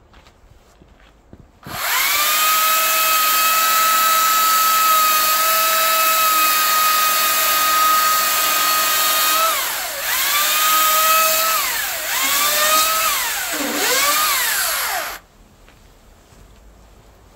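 Makita 40V cordless electric chainsaw running at full throttle: a steady high motor-and-chain whine that starts about two seconds in and holds for about eight seconds. It then falls and rises again three times as the trigger is let off and squeezed, and cuts off a couple of seconds before the end.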